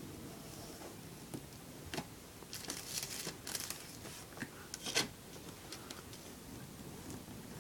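Clear plastic sleeve crinkling and rustling in bursts as it is handled and pulled off a CD, with light clicks from a plastic CD jewel case. The loudest crinkle is a sharp one about five seconds in.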